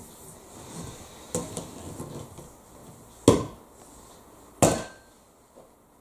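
Sharp knocks and clacks from the Henry vacuum cleaner's hose and metal wand being handled and fitted together while the vacuum is switched off: a few light clatters, then two loud knocks with a brief ring, about a second and a half apart.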